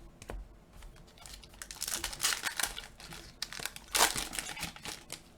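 A Panini Mosaic Fast Break trading-card pack wrapper crinkling as it is torn open. The loudest rustle comes about four seconds in.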